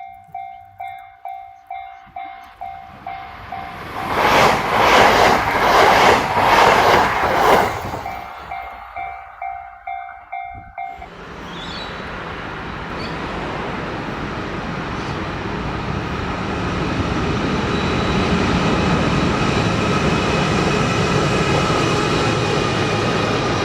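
Japanese level-crossing bell ringing in quick, evenly repeated dings while a 683 Series electric train passes for about four seconds with a loud, rhythmic wheel clatter. About eleven seconds in, the bell cuts off and the rumble of another train builds steadily as it approaches.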